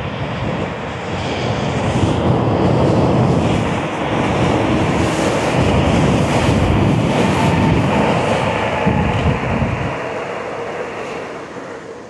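Wind rushing over the microphone together with tyre noise on rough asphalt, from an electric scooter riding at about 30 to 37 mph. The noise eases off about ten seconds in as the scooter slows.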